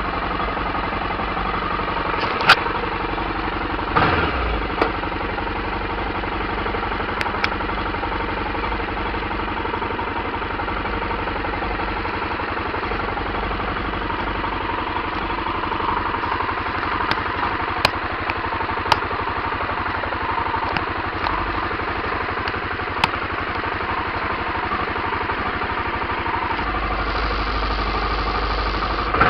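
Aprilia Pegaso 650 Cube motorcycle's single-cylinder engine idling steadily while the bike stands still, with a few sharp clicks. The low rumble deepens slightly near the end.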